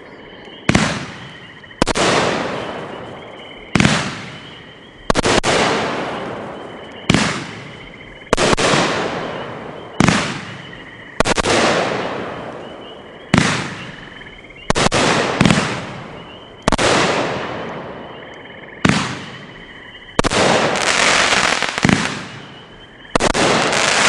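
A 500-gram, 27-shot consumer firework cake firing. Sharp aerial shell bursts come about every one to two seconds, each trailing off over a second or more, and near the end they run almost continuously into the finale.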